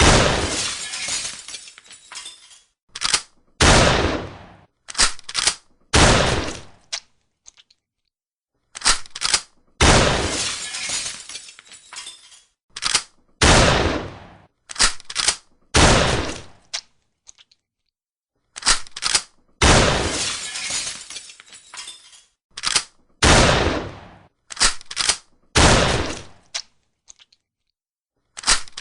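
Shotgun firing and being reloaded: sharp reloading clicks between loud blasts, each blast trailing off over a second or two. The same sequence of three blasts with their clicks repeats about every ten seconds, separated by short silent gaps.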